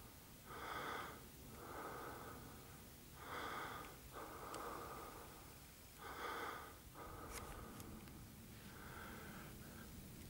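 A person breathing in and out, about one breath every three seconds, each breath a short rush of air, with a few faint clicks between.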